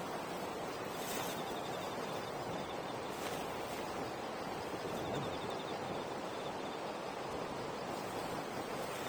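Campfire burning: a steady rushing hiss with a few sharp crackles.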